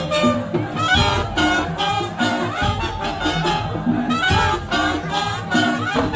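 Lively band music: a melody with gliding notes over a steady beat.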